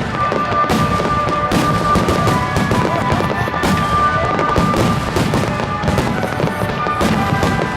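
Fireworks display: a dense run of shells bursting with crackling and popping, over music with long held notes.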